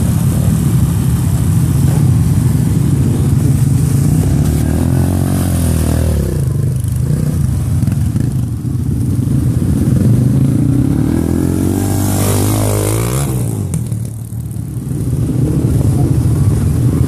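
Dirt bike engines running and revving, the pitch climbing and then falling away twice, about six and thirteen seconds in, as bikes ride past.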